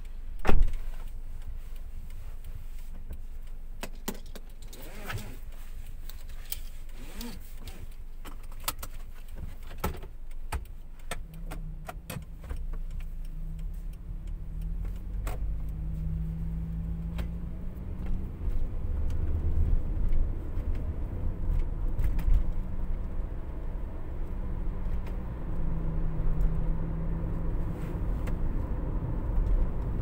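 Cabin sound of a Toyota Noah 70-series minivan coasting down a mountain road in manual shift mode, engine braking rather than using the brakes. A sharp click comes about half a second in and light clicks and rattles follow over the first ten seconds. After that an engine hum comes and goes with shifting pitch over a low road rumble that grows louder.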